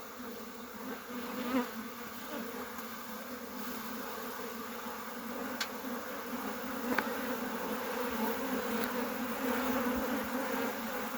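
Honey bees buzzing in an open hive: a steady hum, with a few faint sharp clicks partway through.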